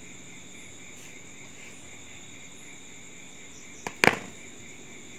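Night insects, crickets, chirring steadily, with one sharp clack about four seconds in.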